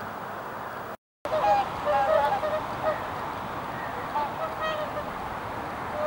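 Several swans giving short honking calls, a few at a time in loose groups, starting just after a brief cut-out about a second in. Before that there is only a steady hiss.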